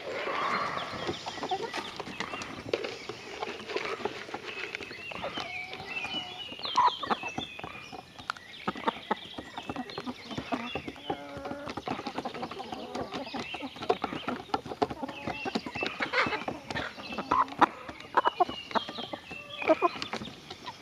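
Backyard chickens clucking and making short calls as a flock, mixed with many short clicks.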